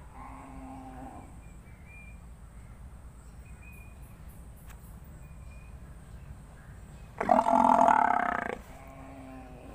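Water buffalo calling: a short, fairly soft bellow in the first second, then a loud, drawn-out bellow about seven seconds in, trailing into a softer call.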